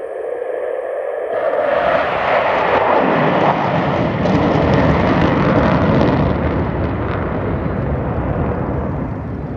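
Jet engine roar of the Blue Angels' four F/A-18 jets passing in diamond formation, a deep rumbling roar that swells about a second and a half in, stays loud through the middle and eases off near the end.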